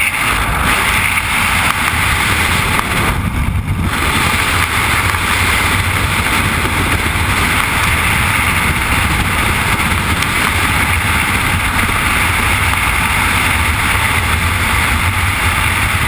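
Steady, loud roar of freefall wind rushing over a skydiving camera's microphone.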